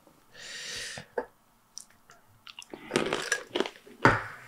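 Crunchy chewing of coconut-cream-coated peanuts, as scattered crisp crackles that bunch together about three seconds in, after a short hiss near the start.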